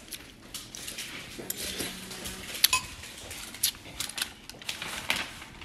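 Eating utensils clinking and tapping against dishes at a meal: a string of irregular sharp clicks, the loudest a little under three seconds in.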